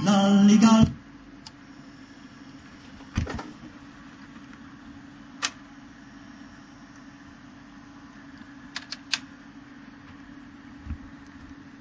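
Music playing from a 45 record on a Pioneer PL-X300 mini turntable cuts off abruptly about a second in, as the tonearm is lifted. After that the turntable's motor hums steadily, with a knock and a few sharp clicks from handling and the mechanism.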